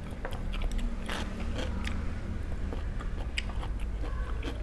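Close-up chewing and crunching of a crisp tré salad of fermented pork skin and ear, with many short sharp crunches and clicks while eating.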